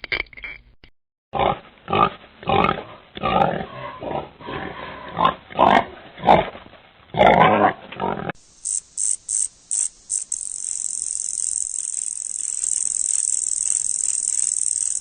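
Pig grunting in a quick run of short calls. About eight seconds in, it gives way to a high-pitched sound that starts as a few short pulses and then holds as a steady hiss.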